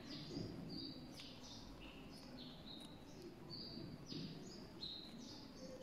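Pen writing on lined notebook paper: a faint run of short, high, scratchy strokes, one after another.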